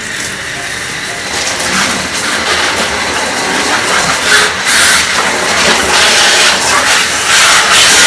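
Water spray from a hose nozzle hissing as it rinses the stainless-steel drum of a top-loading washing machine. It grows louder about halfway through as the spray is turned into the drum.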